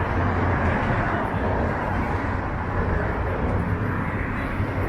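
Steady city street noise: the rumble of road traffic with a low hum underneath, no single event standing out.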